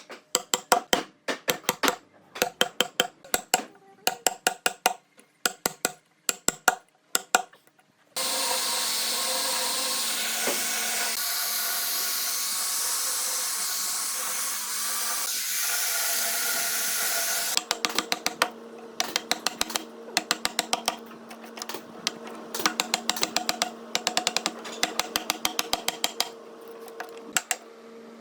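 Woodworking tools: a fast run of sharp taps or knocks, then a power tool runs steadily for about nine seconds and stops. After it stops, the tapping picks up again over a faint steady hum.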